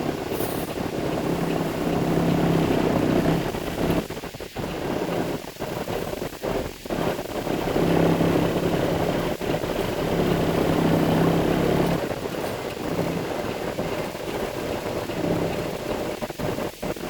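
Concrete mixer truck's engine running, a steady low drone that swells louder twice and then eases.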